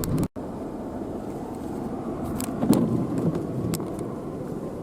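A car driving on a snow-covered road: a steady rumble of tyres and engine, with a few light clicks and taps. The sound cuts out completely for an instant just after the start.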